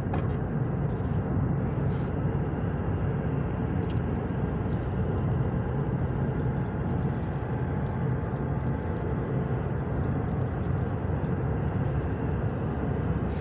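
Steady road and engine noise of a car driving, heard from inside the cabin, with a low rumble.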